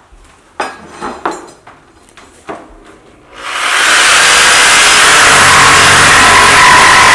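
A few scattered knocks, then about three and a half seconds in a corded reciprocating saw starts and runs loud and steady, its blade cutting into a kitchen countertop.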